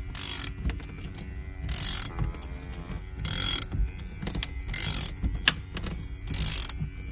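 A ratchet worked in short strokes about every second and a half, winding the Equalizer Viper's cutting cord to cut out the windshield. Under it runs a steady hum from the power suction cup's pump.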